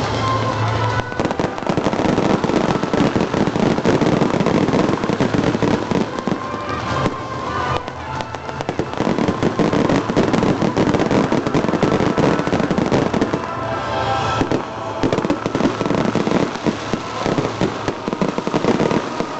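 Fireworks and firecrackers going off in a dense, continuous crackle of rapid bangs, thinning briefly twice, with music playing underneath.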